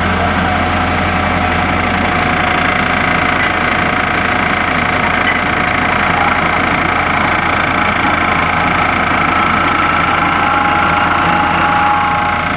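Motor-driven hydraulic power pack for a wire-stressing jack running steadily with a constant hum while its control valve is worked to pressurise the jack.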